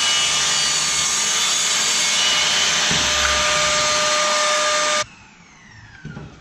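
Makita circular saw cutting through plywood with a vacuum drawing dust from its dust port, a loud steady whine. About five seconds in the saw is switched off, and the blade winds down with a falling whine.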